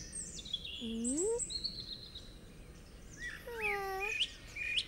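Cartoon jungle ambience of chirping birds, with two short dog-like whining calls: the first rises about a second in, and the second dips and then rises a little before four seconds.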